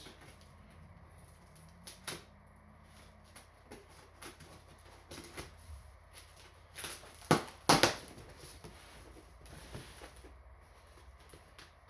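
A cardboard shipping box being handled and opened: scattered light taps, clicks and scrapes, with two sharper knocks close together a little past halfway.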